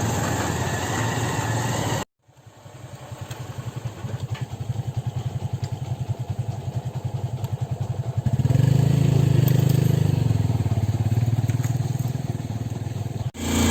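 Motorcycle engine running with a steady low pulsing beat that grows louder, then jumps louder about eight seconds in. The first two seconds are even rushing noise that ends abruptly at a cut.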